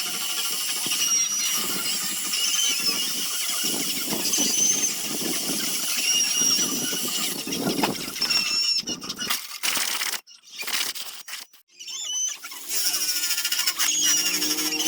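Power sanding of a zelkova-wood basket: the sander's high whine wavers over the rasp of abrasive on wood. It nearly stops about ten seconds in, then starts again with a lower, steadier whine.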